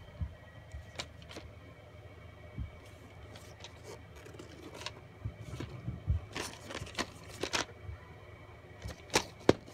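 VHS tape cases being handled: scattered light clicks, taps and rustles as a tape is picked up and turned over, with two sharper clicks near the end.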